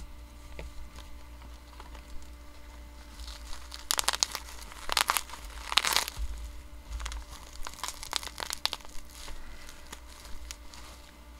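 Plastic and bubble-wrap packaging crinkling and tearing as a wrapped trading card is pulled open by hand, in two spells of crackly rustling near the middle, the louder one about halfway through.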